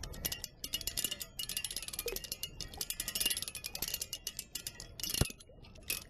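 Rapid, irregular ticking and clinking from a river water wheel's metal paddle linkage as it turns in flowing water, with one sharper click about five seconds in.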